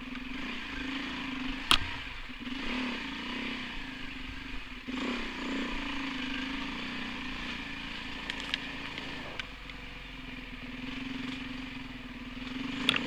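Off-road motorcycle engine running as the bike rides a dirt trail, its note wavering up and down with the throttle over a hiss of wind and tyre noise. There is a sharp knock a little under two seconds in and another near the end.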